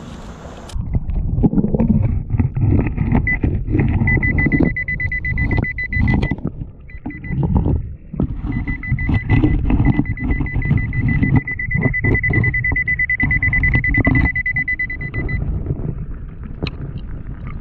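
Underwater metal-detecting pinpointer giving a steady high electronic tone that starts and stops as it is swept over the creek bed, and holds longest in the middle and latter part, signalling metal close to its tip. It is heard muffled through the underwater microphone, over low rumbling and knocking from hands and gravel being moved.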